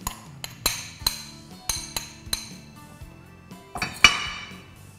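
A metal spoon clinking against bowls as cooked lentils are scraped out of a ceramic bowl into a stainless steel mixing bowl: a series of sharp clinks about every half second, then one louder ringing clang about four seconds in as the spoon works in the steel bowl.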